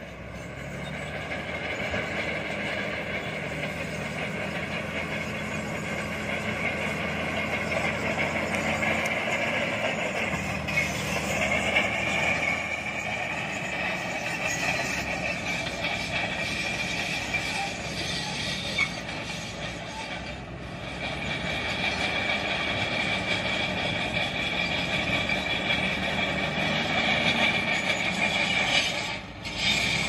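SHANTUI crawler bulldozer's diesel engine running steadily under load as it pushes soil with its blade. A steady high whine joins it about a third of the way in.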